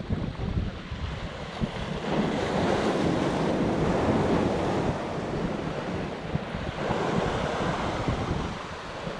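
Sea waves breaking and washing against the rocks of a breakwater, with wind buffeting the microphone. The surf swells twice, about two seconds in for a few seconds and again around seven seconds.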